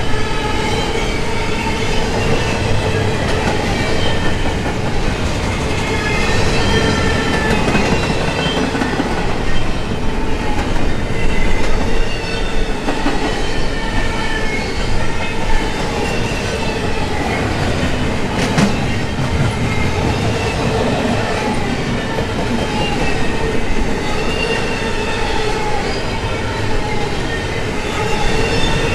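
Double-stack intermodal container well cars rolling past close by: the steady rumble and clatter of steel wheels on the rails, with wavering squeals that come and go. There is one sharp knock about two-thirds of the way through.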